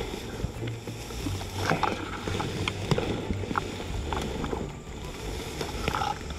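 Tall grass and reeds rustling and brushing against a body-worn camera and gear as an airsoft player moves low through them, with scattered soft crackles over a low rumble of handling noise on the microphone.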